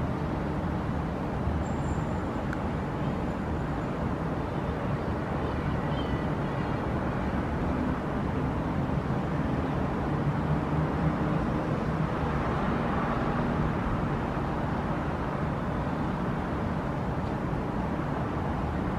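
Steady hum of distant city traffic.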